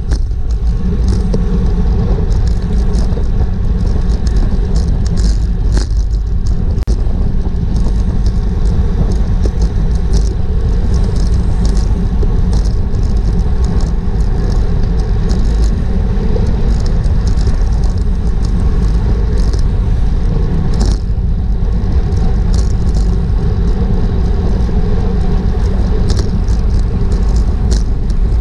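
Wind buffeting the microphone of a GoPro riding along on a racing bicycle at speed: a loud, steady low rumble. Short ticks and clicks are scattered through it.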